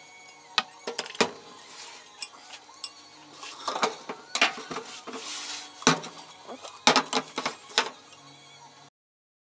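Utensils clinking and knocking against a glass Pyrex measuring jug of soap batter: a stick blender and a silicone spatula tapping the rim and sides, with a short scrape of the spatula stirring about halfway through. The sound cuts off abruptly near the end.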